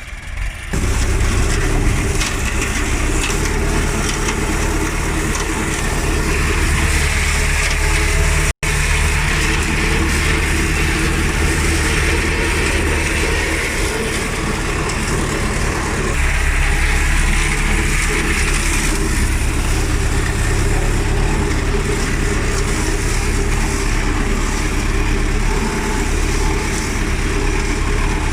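Tractor engine running steadily under load, heard from on board the tractor, with a strong low rumble.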